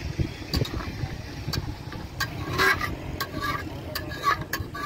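A metal spoon stirring scrambled eggs in a steel pot, scraping and clinking against the pot's sides and bottom in quick, uneven strokes.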